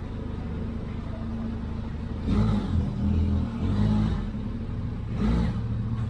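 Motor vehicle engine running steadily, with louder surges like revving about two seconds in and again briefly near the end.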